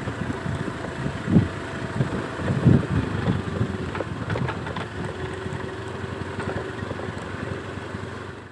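A motor running steadily under a noisy rumble, with irregular gusts of wind buffeting the microphone.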